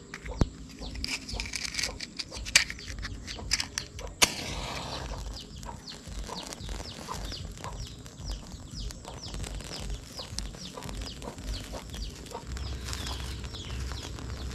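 Dry bark, sticks and grass handled and stacked to lay a cooking fire, with sharp snaps and clicks in the first few seconds. About four seconds in comes a match strike with a brief hiss. Short, high bird chirps repeat from then on.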